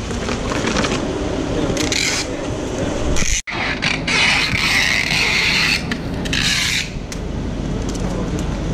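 Packing tape rasping on a cardboard vaccine shipping box as it is pulled and pressed by hand, in several bursts, the longest lasting about two seconds, over a low steady rumble.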